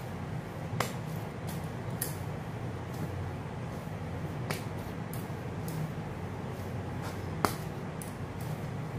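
Soft bread dough being kneaded by hand on a wooden chopping board: quiet pressing and rubbing over a steady low hum. Several sharp clicks break in, the clearest about a second in and near the end.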